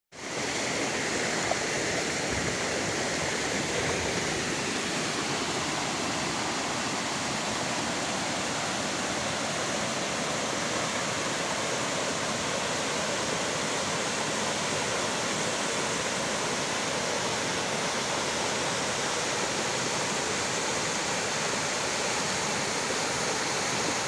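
Water rushing over rocks in a shallow mountain stream: a steady, even rush.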